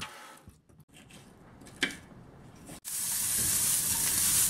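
Food frying in a pan over a portable gas stove, a loud steady sizzle that starts abruptly about three seconds in. Before it, only faint sound with a single click about two seconds in.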